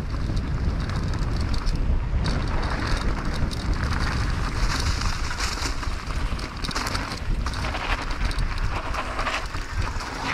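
Wind buffeting the microphone and mountain-bike tyres rolling over a dirt forest trail, with a steady stream of rattles and knocks from the e-mountain bike over bumps.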